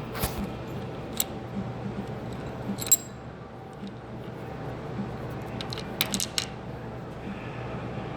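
Scattered metallic clicks and clinks from handling a hand-operated brake line flaring tool and steel brake line, a few sharp ones about three seconds in and a cluster near six seconds, over a steady low hum.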